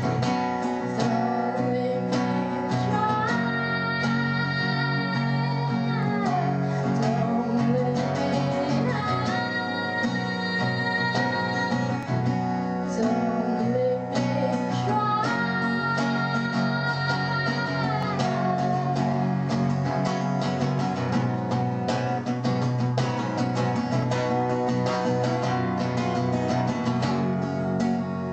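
A pop song: a woman singing long held notes that slide between pitches, over guitar accompaniment.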